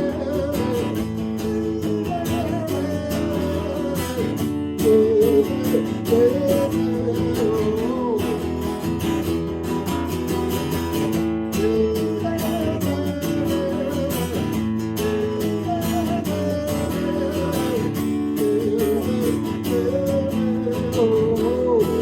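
Live guitar solo in a rock song's instrumental break: a lead melody with bent notes over steadily strummed chords.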